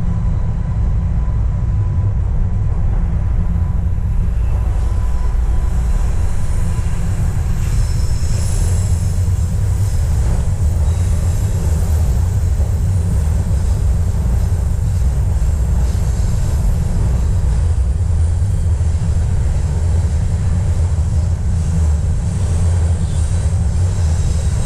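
TTC Line 1 Yonge subway train running at a steady speed: a loud, even low rumble of wheels on rail, with a faint high wheel squeal at times.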